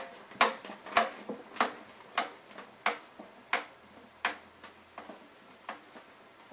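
Hand screwdriver turning a T25 Torx screw out of a Stihl backpack blower's plastic frame: a sharp click with each turn of the wrist, about every two-thirds of a second, getting fainter toward the end.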